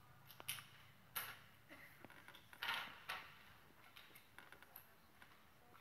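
Near-silent room tone broken by a few faint, short clicks and rustles, the clearest about a second in and near the middle.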